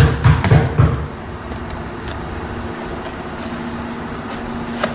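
Steady mechanical background noise, an even whoosh with a faint low hum, like ventilation or air-conditioning running in the shop.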